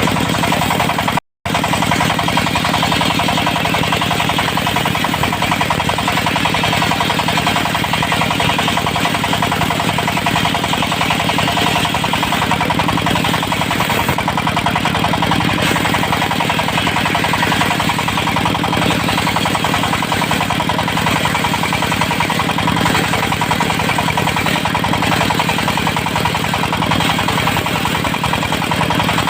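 Portable circular-saw sawmill running steadily, its diesel engine driving the blade through teak logs, with a brief cut-out about a second in.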